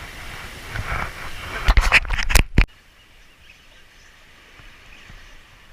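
Outdoor background noise with a quick cluster of sharp knocks about two seconds in, after which the sound drops abruptly to a faint steady background.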